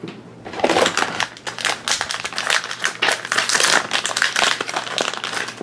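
Foil blind bag crinkling and crackling as it is handled and torn open, a dense run of crackles starting about half a second in.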